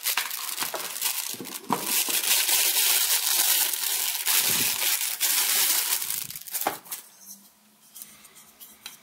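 Clear plastic packaging bag crinkling as it is handled and pulled off a power adapter, with many small sharp crackles for about seven seconds. After that the sound drops away to a few light clicks of hard plastic parts.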